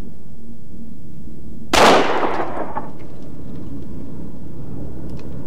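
A single revolver shot about two seconds in, fired single action with the hammer cocked by hand, its report dying away over about a second.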